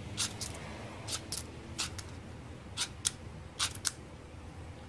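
UST Sparkie fire starter struck repeatedly, its striker scraping down the ferrocerium rod to throw sparks onto tinder: about nine short, sharp scrapes, mostly in quick pairs.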